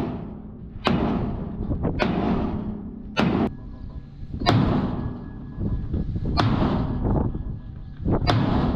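Heavy hammer blows on steel bodywork, about six strikes spaced a second or two apart, each ringing briefly after the hit.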